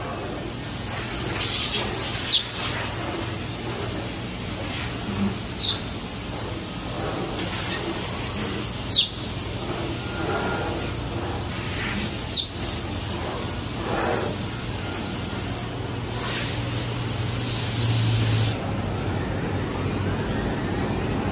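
Woodmaster five-axis CNC machining centre milling a curved wooden chair backrest: steady spindle and cutting noise over a low hum, with a few brief high squeaks that drop in pitch. A louder rush of noise comes in for a couple of seconds late on.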